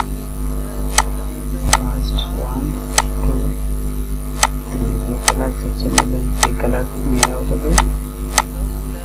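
Computer mouse button clicked repeatedly, a dozen or so sharp clicks irregularly spaced about half a second to a second apart, over a steady electrical hum on the recording.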